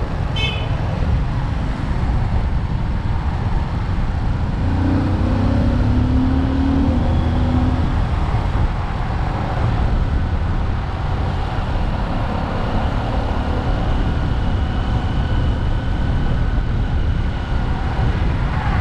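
Motorcycle engine running steadily on the move, under a heavy low wind rumble on the microphone. A low hum swells from about four to eight seconds in.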